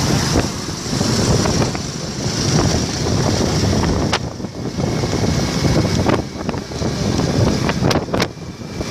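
Wind buffeting the microphone of a moving motorbike over the running engines of small motorbikes, with a few sharp clicks about four seconds in and near the end.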